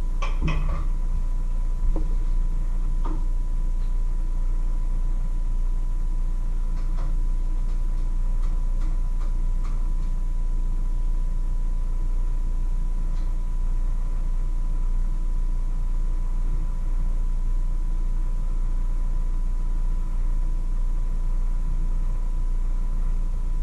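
Steady low hum with a faint steady whine, overlaid by a few light clicks and clatters of kitchen utensils in the first seconds and again around the middle.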